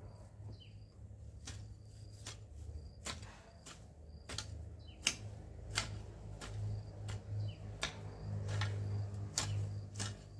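Hoe blade chopping and scraping into garden soil in quick, regular strokes, each one a sharp knock. The strokes come about once or twice a second and get louder about halfway through.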